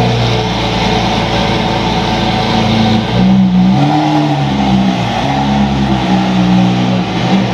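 Lamborghini Aventador S's V12 on a full Capristo exhaust, running loud as the car rolls off at low speed. About three seconds in, its note starts stepping up and down several times.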